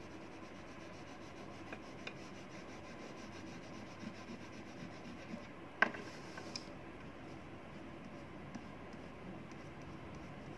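Crayon rubbing and scratching faintly across paper as it colours, with a few small clicks and one sharper click about six seconds in.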